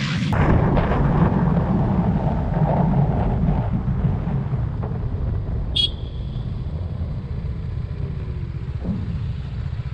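TVS Apache RR 310's single-cylinder engine running under a rush of wind noise while riding, the level easing off after about four seconds as the bike slows. A short high beep sounds about six seconds in.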